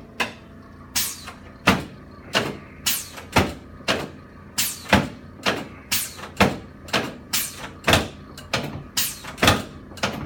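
A steady run of sharp knocks or clacks, about two a second, each dying away quickly.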